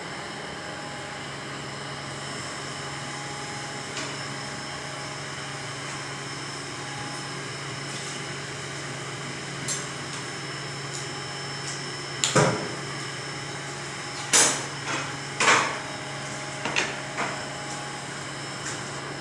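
Metal rods and racks clanking against each other and the rails of the gold-plating tanks: a series of sharp metallic knocks starting a little past the middle, over a steady hum and hiss of running workshop equipment.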